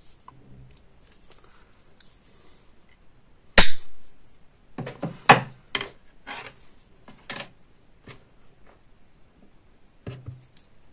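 Small plastic hose fittings and hand tools handled on a wooden tabletop: a sharp snap about three and a half seconds in, then a run of light clicks and knocks with a plastic bag rustling.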